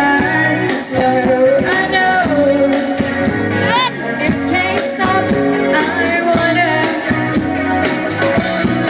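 Live band playing a rock-pop song, with a lead vocal over a steady drum beat and bass; about four seconds in, the singer holds a wavering, vibrato note.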